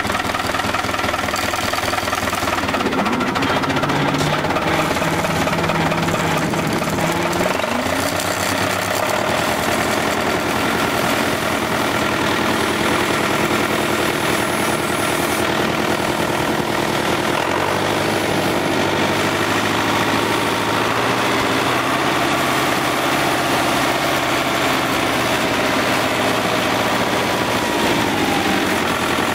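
Case David Brown 995 tractor's three-cylinder diesel engine running steadily as the tractor is driven, its engine note shifting a few seconds in and again about halfway through.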